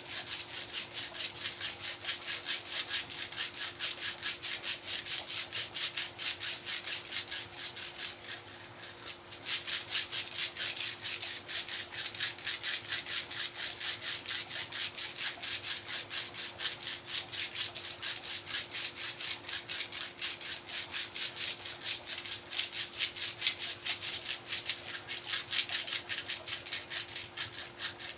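Hands-on massage: fast, rhythmic rubbing strokes on the body, about five scratchy strokes a second, easing off briefly about eight seconds in.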